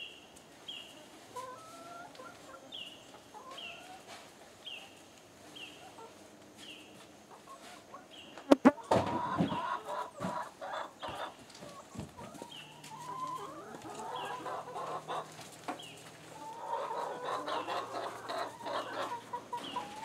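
A flock of chickens clucking and murmuring, growing busier in the second half. A sharp clatter about a third of the way in is the loudest sound.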